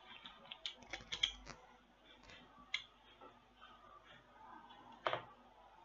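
Light clicks and rattles of a WR 800 condenser microphone and its plastic spider shock mount being handled, with a cluster of clicks about a second in and a sharper click near the end.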